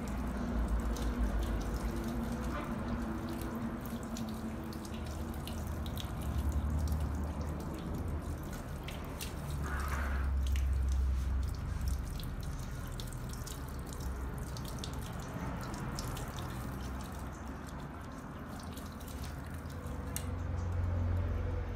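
Water running from a shampoo-basin tap and splashing and dripping into the basin as a man's hair is rinsed, with many small drips and splashes. About ten seconds in, hands held under the stream splash more strongly.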